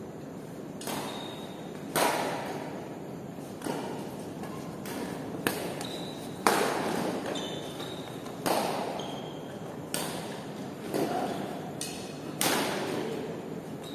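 Badminton rally: rackets strike the shuttlecock about every one to two seconds, each hit a sharp crack that echoes in a large gym hall. Between hits come a few short, high squeaks of shoes on the court floor.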